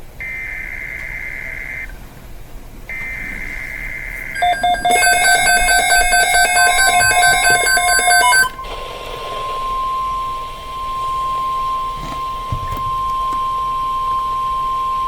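NOAA Weather Radio alert: the last two buzzy bursts of the SAME digital header, each about a second and a half long with a one-second gap. Then come about four seconds of loud, rapid electronic beeping, and then the steady 1050 Hz warning alarm tone, held for about seven seconds. The alarm tone heralds a Tornado Watch broadcast.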